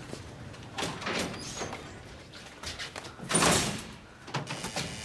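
Barred steel jail gate sliding open, loudest about three and a half seconds in.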